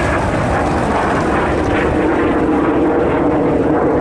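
Propeller-driven piston-engined warbird flying past, a steady engine drone whose pitch rises slightly.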